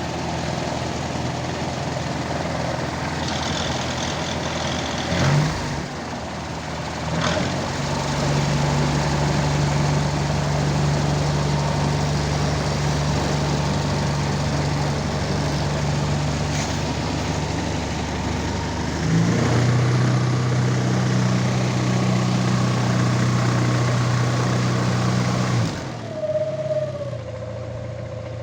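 Propeller engine of a homemade wooden light aircraft running steadily during a ground run, its speed stepping up about five seconds in and again about two-thirds of the way through, then dropping back sharply to a lower idle near the end.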